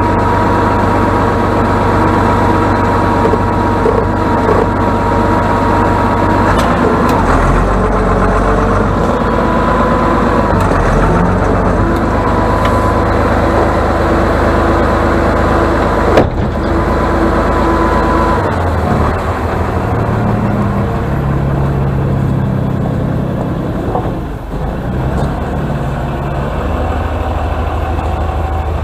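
Atlas 1602 wheeled excavator's diesel engine running, with a high whine over it that bends in pitch several times and an engine note that changes as the boom and bucket are worked. A single sharp knock comes about sixteen seconds in.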